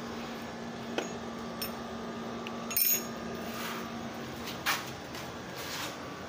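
Metal hand tools clinking and knocking at a car's negative battery terminal as it is loosened and removed, with one bright ringing clink about three seconds in and a short scrape near five seconds.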